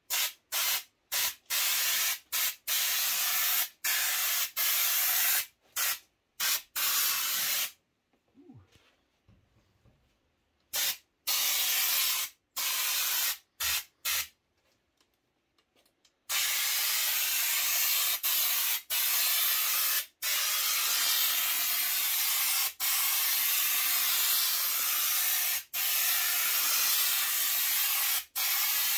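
Compressed-air underseal gun spraying Upol Gravitex stone-chip coating from its bottle, a loud hiss. It comes in short on-off bursts for the first several seconds, stops twice for about two seconds, then runs almost continuously from about sixteen seconds in with only brief breaks.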